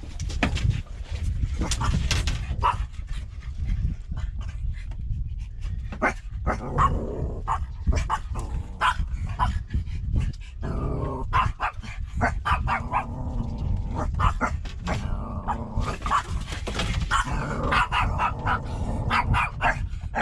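Dog whining and yipping in many short, repeated calls, over a steady low rumble.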